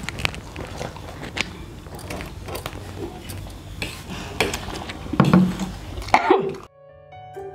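Eating at a table: spoons and fingers clicking against metal plates and glasses, with mouth and chewing noises. A short burst of voice comes about five seconds in, and near the end it cuts to a gentle piano tune.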